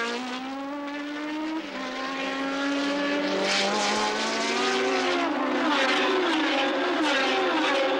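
A pack of 1977 Formula One cars accelerating through a wet chicane. One engine note climbs, dips at a gear change about one and a half seconds in and climbs again. Over the second half more cars pass close with rising and falling notes, over a hiss of spray from the soaked track.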